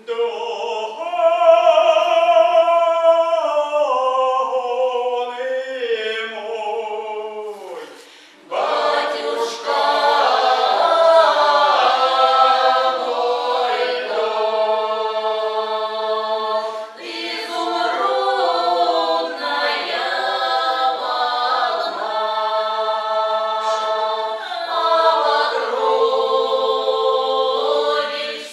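Folk ensemble singing a Cossack song about the Don, a male lead voice with women's voices. The opening phrase falls in pitch, then breaks off near eight seconds in, and the full group comes in with a fuller sound that carries on.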